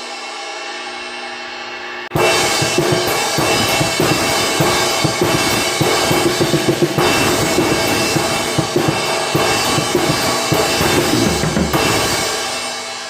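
Armada Achilles AXL cymbals played on a drum kit. A cymbal rings and fades, then about two seconds in a groove on kick drum, snare and cymbals starts, and near the end the playing stops and the cymbals ring out.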